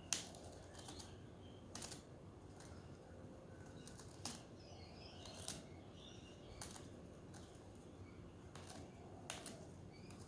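Pet budgerigars chirping and chattering faintly, among about a dozen sharp, irregular clicks and taps, the loudest just after the start.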